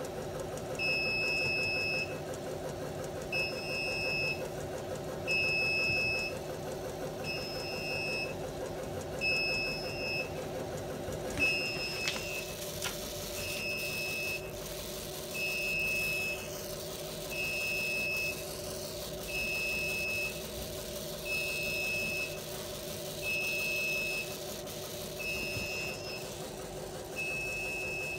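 Continuous inkjet printer running with a steady hum from its ink system, while its alarm buzzer beeps: a tone about a second long, repeating every two seconds or so, with the printer's alarm lamp lit.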